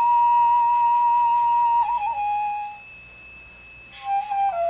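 Background music: a slow solo melody line, one long held note that wavers and steps down about two seconds in and fades, then after a short pause a new phrase of falling notes begins near the end.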